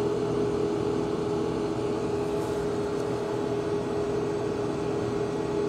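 Steady low hum with a few held tones, unchanging throughout; no clicks or tool sounds stand out.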